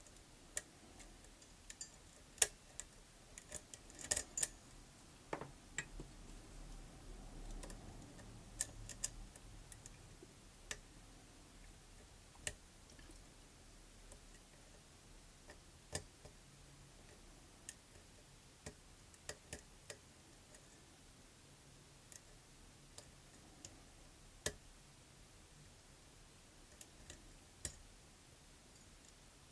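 Lock pick and tension wrench working the pins of a pin-tumbler lock, making sharp, irregular small metallic clicks and ticks, with a quick cluster of clicks about four seconds in.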